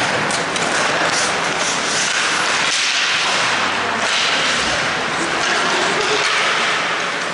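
Ice hockey play: skate blades scraping and carving the ice in a steady hiss, with a few sharp clacks from sticks and the puck.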